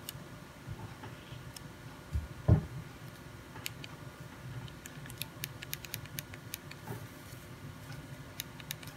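Keypad of a Nokia 2310 phone being pressed, giving many short, sharp plastic clicks, several a second in the second half. A couple of dull thumps about two seconds in are the loudest sounds.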